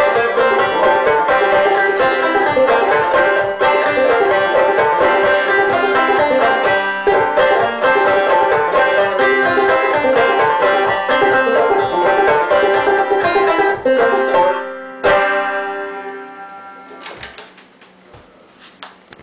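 Banjo played clawhammer style, a fast old-time tune with a steady driving pulse. A little past the middle the playing stops, one last chord is struck and rings out, fading away, followed by a few soft knocks.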